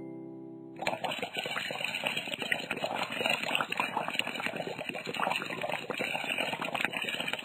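A harp chord dies away, then a little under a second in a steady watery noise starts, dense with small crackles.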